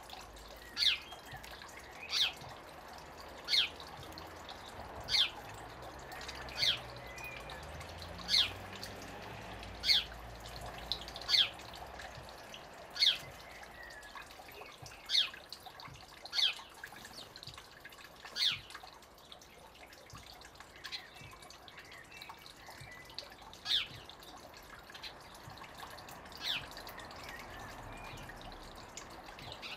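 House sparrow chirping, one short, sharp chirp about every one and a half seconds, over a thin stream of water trickling steadily into a shallow stone pool.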